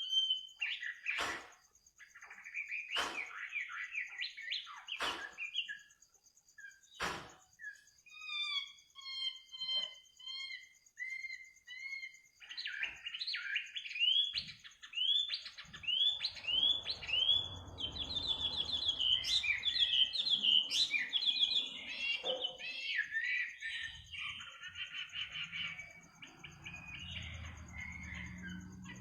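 Songbird singing at night: scattered phrases of quick chirping notes that turn into a dense, louder run of rapid repeated notes in the second half. A steady high buzz runs underneath, and there are four sharp clicks in the first several seconds.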